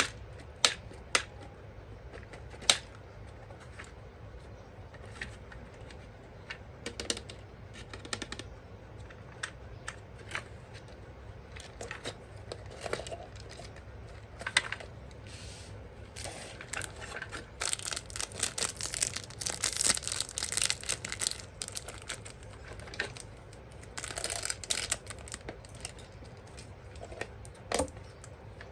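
Hands unboxing plastic toys: scattered clicks and taps of plastic parts and packaging, with stretches of crinkling, tearing packaging from about two-thirds of the way in and again briefly near the end.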